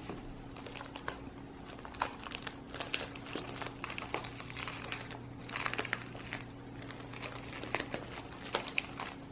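Packaging crinkling and rustling in short irregular bursts as a newly unboxed potted plant is handled, over a steady low hum.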